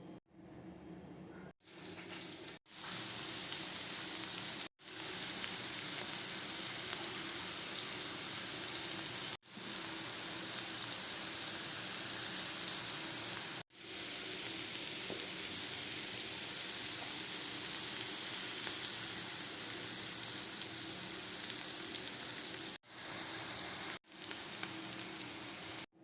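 Hot oil sizzling steadily as food fries in a pan, with fine crackles. It breaks off abruptly several times and comes straight back.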